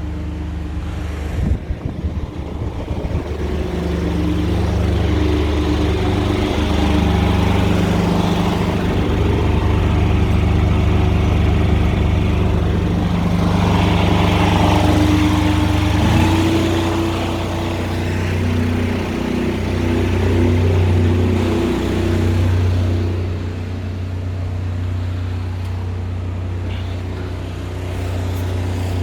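High-pressure drain jetting machine running steadily under load as it blasts lime scale inside a drain pipe. It builds up over the first few seconds, then holds with small swells and dips.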